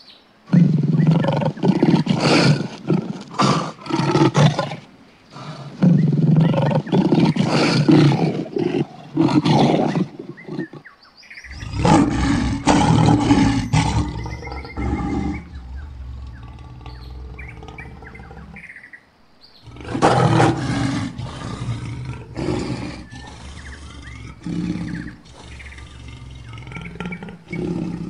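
Lion roaring in several loud bouts a few seconds long, with pauses between, and shorter, quieter calls near the end. Faint bird chirps come in the gaps.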